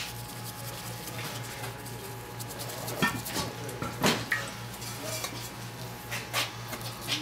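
A paintbrush being rinsed in a stainless steel bowl of water, with a few light clinks against the metal, the loudest about three and four seconds in.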